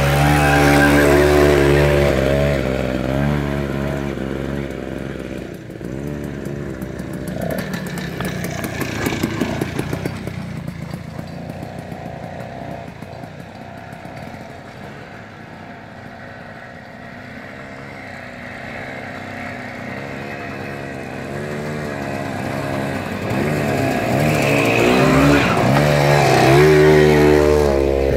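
Off-road motorcycle engines revving and easing off with the throttle while riding over a rocky trail. One bike is loud at first and fades away. Another grows louder as it comes close near the end.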